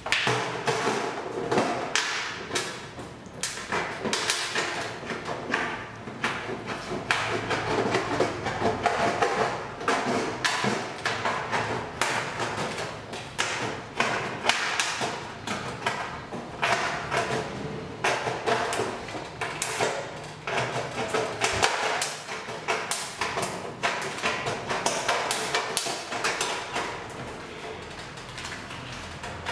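Aviation snips cutting a round hole in 26-gauge corrugated galvanized steel roofing sheet: a long, uneven run of sharp metal snips and clicks, several a second.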